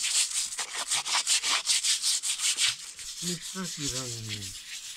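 Fast, even scraping or rubbing strokes, about six a second, lasting nearly three seconds before a voice breaks in.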